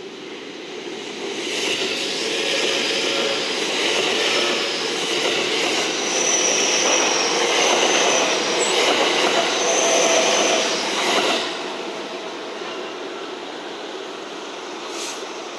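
Eight-car JR West 227 series electric train passing close by, its wheels running on the rails in a steady rumble and rattle that swells as the cars go past. A thin high whine sits over the rumble in the middle. The sound drops away sharply about eleven seconds in, when the last car has passed.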